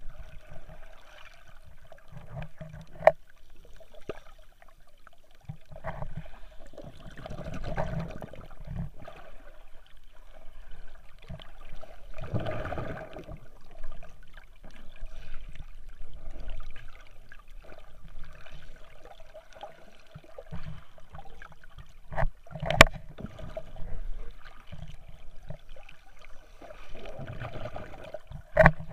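Muffled water sounds heard from underwater as swimmers kick and stroke past, with several swells of churning water and a few sharp knocks, the loudest about three quarters of the way through.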